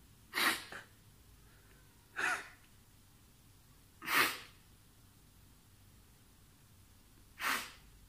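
A man crying: four short, sharp sobbing breaths through the nose and mouth, the first one doubled and the last after a longer pause.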